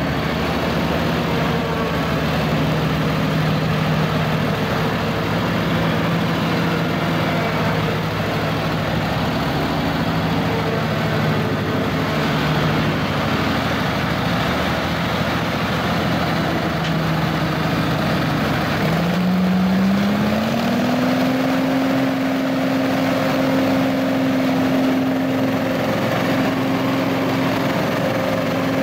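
Billy Goat Z3000 stand-on blower with its 35 hp Briggs & Stratton engine running steadily. About two-thirds of the way through, the engine revs up and holds at the higher speed.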